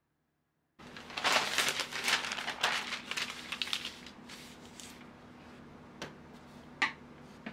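A sheet of parchment paper crinkling as it is handled and smoothed flat by hand, then two light knocks as a stainless mesh sieve is set down on it.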